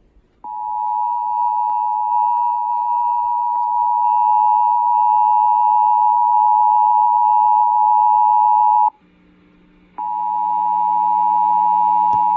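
Emergency Alert System two-tone attention signal: two steady tones sounding together just under 1 kHz, a harsh, even alarm tone. It runs for about eight seconds, breaks off for about a second, then starts again.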